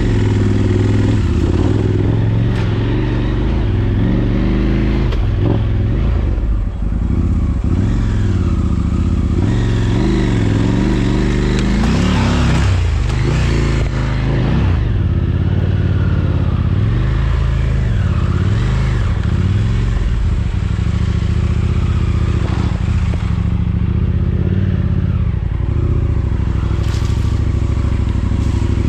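Motorcycle engine running under way, its pitch rising and falling repeatedly as the rider revs and eases off, with some clatter and rattling over the top.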